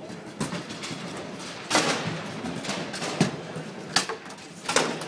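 Bonzini babyfoot table in play: a string of sharp wooden knocks and clacks as the ball is struck by the players on the rods and bangs against the table walls, about six in all, the loudest just under two seconds in.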